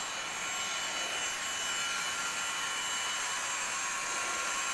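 Sound decoders in HO scale model diesel locomotives playing an EMD SD40-2 diesel engine sound with turbocharger whine, running steadily as the train works up a grade. The sound comes through small speakers, hissy with thin high whines and no deep bass.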